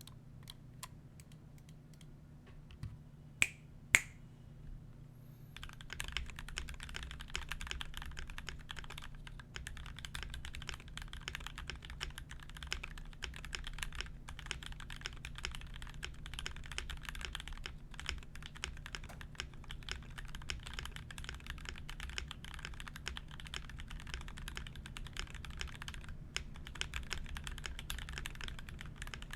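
Typing on a GMMK Pro mechanical keyboard with lubed Gateron Milky Top Black linear switches (75 g springs) and ABS keycaps. A few single keystrokes and two loud clacks come first, then fast continuous typing from about six seconds in, over a steady low hum.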